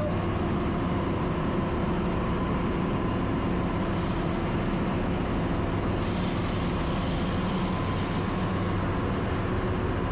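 Ship's engine-room machinery running steadily: a constant loud drone with several steady hum tones underneath.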